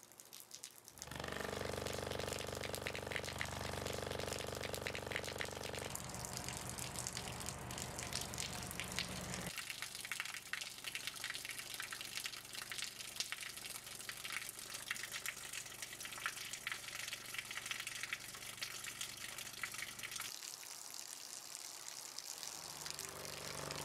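Flowing water: a steady rushing, crackling hiss. For the first nine seconds or so, a steady low hum of several held tones sits under it, then stops.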